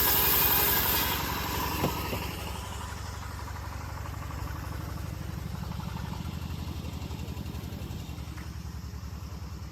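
Homemade bandsaw mill easing off: the loud, hissing cutting noise fades away over the first two seconds, with a single sharp knock about two seconds in, leaving the saw's engine idling with a steady low beat.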